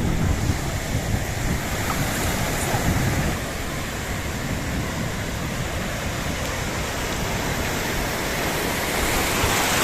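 Sea surf washing on a beach in a steady noise, with wind rumbling on the microphone.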